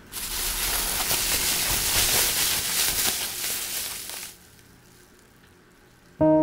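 Plastic bubble wrap crinkling and rustling as it is lifted and scrunched up in the hands, with many small crackles, stopping after about four seconds. Bell-like music notes start just before the end.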